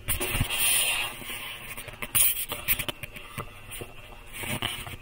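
Scattered clicks, knocks and scrapes of equipment being handled and moved about, loudest in the first second and again about two seconds in.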